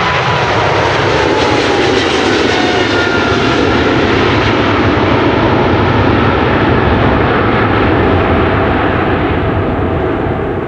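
Airliner's engines passing close by: a loud roar with whines that fall in pitch in the first few seconds, fading away near the end.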